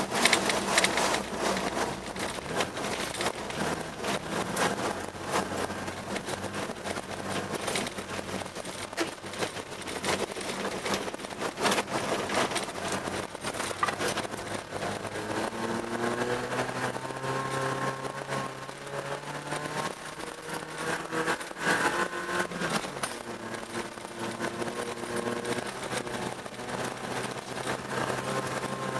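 A car being driven on an ice track, heard from inside the cabin: the engine runs under a steady noise of tyres on snow and ice, with many irregular knocks and clatters in the first half. From about halfway through, the engine note climbs in pitch as the car speeds up, then holds.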